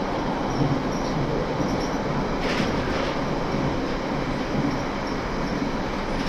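Running sound inside a London Underground 1992 Tube Stock car in a tunnel: a steady rumble of wheels on rail. About two and a half seconds in there is a brief, sharper hiss.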